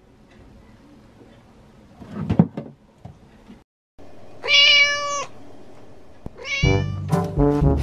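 A domestic cat meows twice: a long, level meow just after the halfway point and a shorter one falling in pitch near the end. A few knocks come about two seconds in, and brass music starts right after the second meow.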